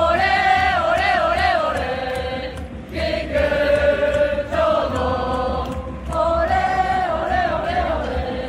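Football supporters' chant: a large crowd singing in unison, repeating a short melodic phrase over a steady low rumble.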